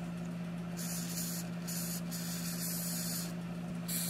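Aerosol spray lubricant hissing through an extension straw in four short bursts, the last starting near the end, over a steady low hum.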